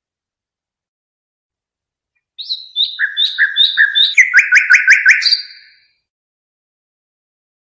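A songbird singing one phrase of about three seconds, starting a couple of seconds in: a run of repeated chirped notes, then a faster series of sharp notes, ending on a single higher note. A song recording made for tutoring young birds.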